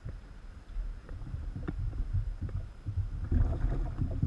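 Irregular low thumps and knocks from handling on a kayak, carried through the camera mount. About three seconds in comes a louder stretch of water splashing as a common carp is let go over the side.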